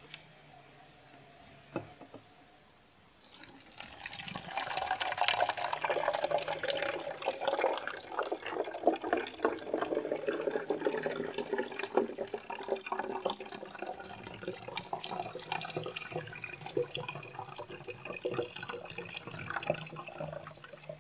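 Warm water poured from a thermos flask into an empty plastic bottle: a few small clicks, then a steady pour that starts about three seconds in and runs until the flask runs dry.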